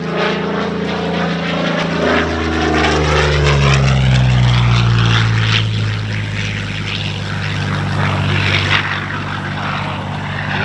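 Curtiss P-40N Warhawk's Allison V12 engine and propeller flying past. The engine note drops in pitch as the plane goes by, loudest around four to five seconds in, then settles to a steady drone.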